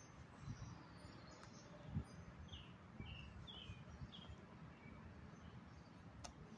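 Near-quiet outdoor air with a songbird chirping faintly, a run of about five short falling chirps midway through. A single soft low thump comes about two seconds in.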